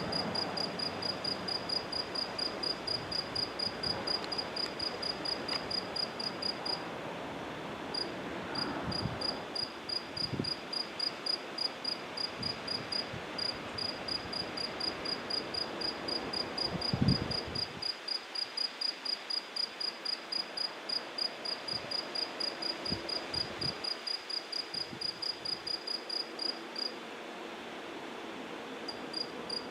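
A cricket chirping steadily at night, high, even chirps about three a second, pausing briefly twice. A single low thump sounds about halfway through.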